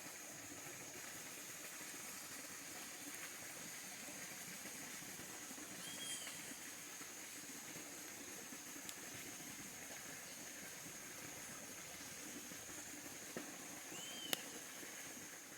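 Faint steady hiss of a pot of rice simmering over a wood fire, under a steady high insect drone. Two short rising-and-falling chirps, about six and fourteen seconds in, and a sharp click just after the second.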